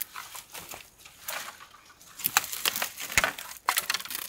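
Dry bamboo twigs and sheaths crackling, snapping and rustling as hands push into a dense bamboo clump to reach a shoot. The sharper cracks come in a cluster over the second half.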